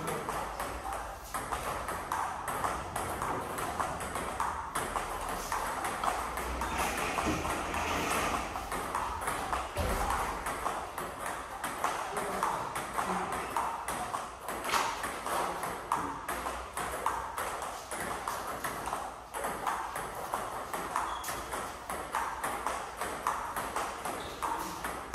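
Table tennis rallies: the ball clicking sharply off the paddles and the Tibhar table top, back and forth in a quick, steady stream of ticks.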